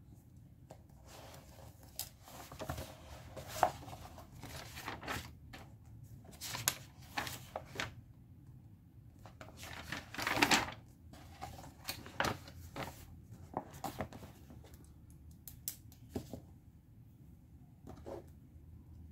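Paper handling at a desk: pages of a bound workbook being turned and pressed flat, with a longer rustle about halfway through. Scattered light clicks and taps of a pen and ruler set down on the desk.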